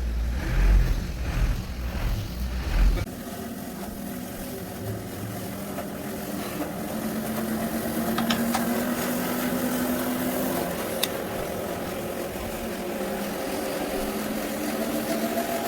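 The sawmill band saw's engine running steadily at constant speed, with loud low thumping and rumble for the first three seconds and a couple of sharp clicks later.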